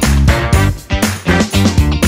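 Upbeat live ensemble music: marimbas played with mallets over a drum kit, with heavy bass notes changing in a quick, funky rhythm.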